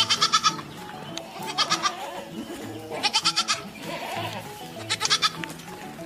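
Goat bleating: four short, quavering bleats, each about half a second long, spaced about a second and a half apart, over a soft background music bed.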